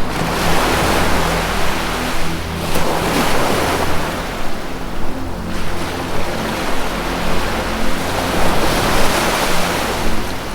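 Ocean surf washing ashore in repeated swells, about three surges rising and falling. Soft sustained low music tones run underneath.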